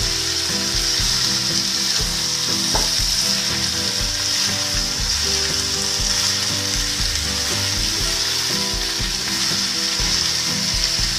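Chunks of boiled raw jackfruit and potato sizzling in hot oil in a frying pan while a spatula stirs them, with soft scrapes and knocks of the spatula against the pan.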